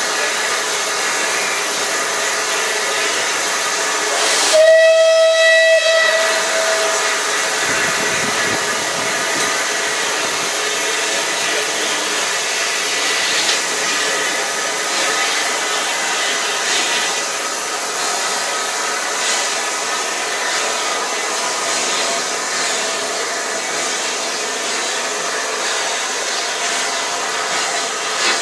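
Bulleid West Country-class steam locomotive 34023 sounding its whistle once, about four seconds in, in a single held note lasting roughly two and a half seconds. Steady steam hiss runs throughout as the train moves off.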